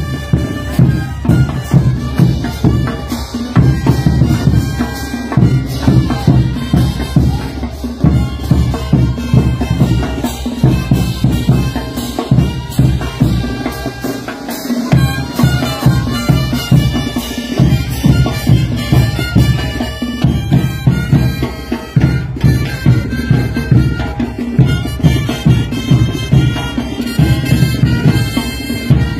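Bolivian folk band playing a Potolos dance tune: wind instruments carry the melody over a steady bass drum and cymbal beat. The drums drop out briefly about halfway.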